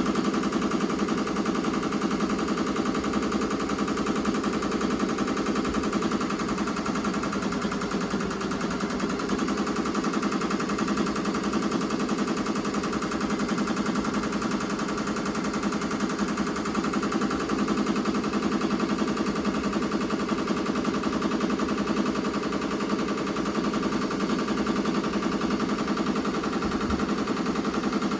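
Ricoma MT-2002-8S multi-needle embroidery machine stitching at speed: a steady, rapid clatter of needle strokes.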